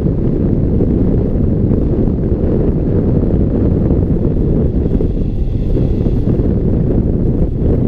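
Wind noise from the airflow of a hang glider in flight, buffeting a camera microphone mounted on the wing: loud, steady and deep-toned, without a break.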